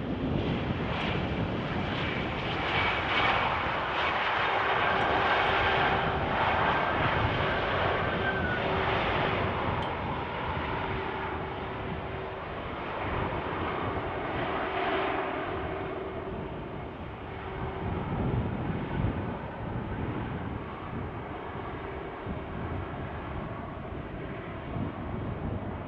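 Airbus A320 jet engines running loud as the airliner rolls along the runway, loudest in the first several seconds and then gradually easing as it moves away, with a steady hum running under the noise through the middle.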